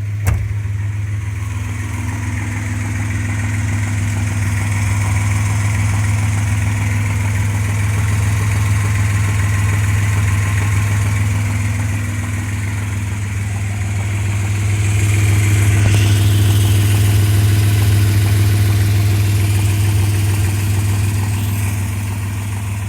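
Suzuki H20A 2.0-litre V6 engine running warm, swelling in loudness twice, with the ticking knock that appears only once the engine is hot. The cause is unknown: the owner suspects a rattling timing chain, the pistons or the bearing shells, although the timing chain is new.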